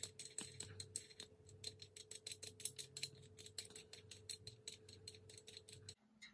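Brass lead-screw nut in its aluminium clamp block being spun by hand along a threaded lead screw. It makes a quick run of faint, light metal clicks, several a second, that cuts off just before the end.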